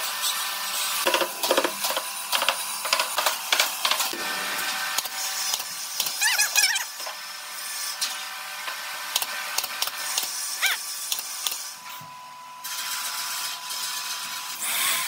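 Woodworking hand and tool work on wood: scraping and rubbing with many small clicks and knocks, and a couple of brief squeaks.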